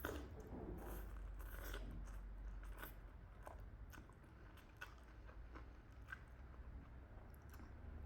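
Close-miked chewing and mouth sounds of a person eating, with irregular soft clicks and smacks.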